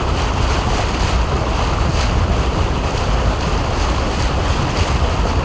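Steady rush of wind and water from a small boat under way on a lake, with wind buffeting the microphone and a low rumble underneath.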